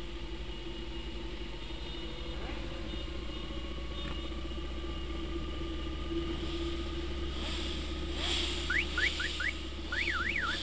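Steady engine hum and road and wind noise from a motorcycle riding among a pack of motorcycles. Near the end a siren starts: a few short rising whoops, then a fast up-and-down warble, about two sweeps a second.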